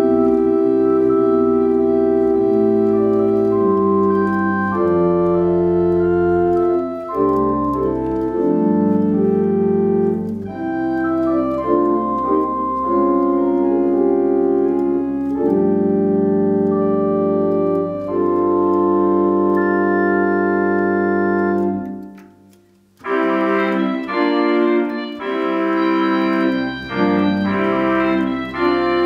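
Allen electronic organ played on two manuals and pedals: held chords over deep pedal bass notes. About 22 seconds in the music stops briefly, then a brighter passage with quicker-changing notes begins.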